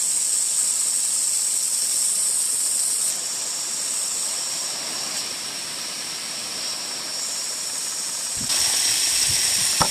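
Steady hiss of a pump-pressurised water jet from a garden hose spraying about 25 feet. It eases off slightly about three seconds in and grows louder again near the end.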